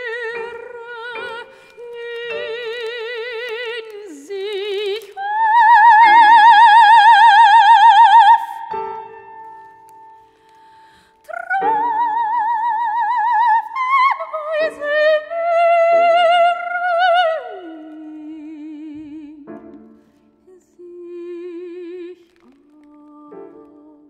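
Operatic soprano singing a contemporary art song with wide vibrato. The loudest moment is a long held high note about six to eight seconds in; a later phrase sinks to lower, quieter held notes near the end.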